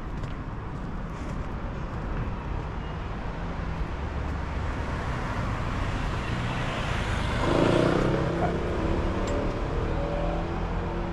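Street traffic noise with a motor vehicle passing close. It grows louder, peaks about two-thirds of the way through, and its engine note carries on after the peak.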